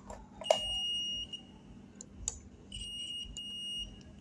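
Digital multimeter's continuity buzzer beeping twice, each a steady high-pitched beep of about a second, as the test probes touch points on the power supply board. A sharp click comes as the first beep starts.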